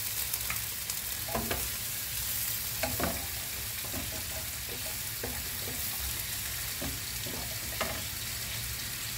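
Butter and sliced mushrooms sizzling steadily in a hot frying pan, with a wooden spatula stirring and scraping them in short clicks now and then.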